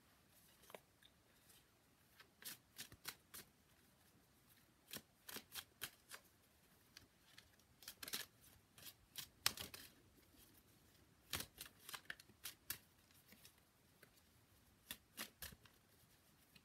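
Tarot cards being shuffled by hand: irregular clusters of soft, quick card clicks and flicks with quiet pauses between.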